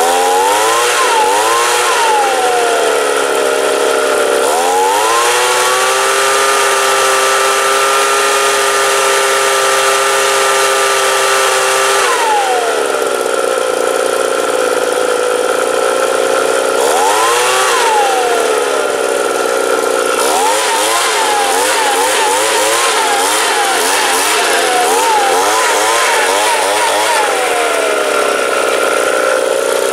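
Ryobi two-stroke leaf blower engine running on its repaired carburetor: idling, revved briefly, held at high speed for about seven seconds, then dropped back to idle. It is blipped again, its throttle is pumped rapidly up and down for several seconds, and it settles back to idle before revving up once more at the end.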